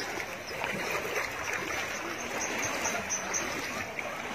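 Floodwater sloshing steadily as people wade through it knee deep.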